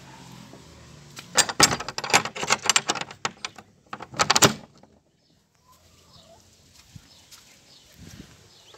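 A rapid, loud clatter of sharp knocks and rattles lasting about three seconds, with hens clucking faintly before and after it.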